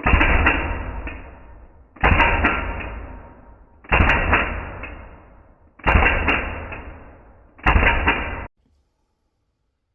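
Five airsoft pistol shots played back slowed down, about two seconds apart, each a sudden deep bang that slowly dies away; the fifth is cut off short.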